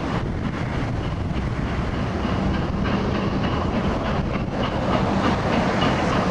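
Steam-hauled train with GWR locomotives 6024 King Edward I and 5029 Nunney Castle running steadily across a bridge, its wheels clattering over the rail joints.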